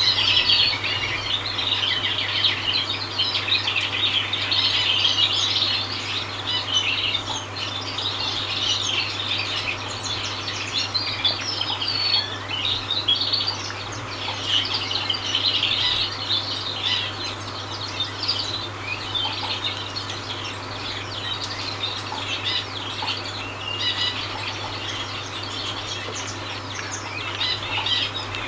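Newly hatched common quail chicks peeping: a dense, continuous stream of rapid, high-pitched chirps from several chicks at once, over a steady low hum.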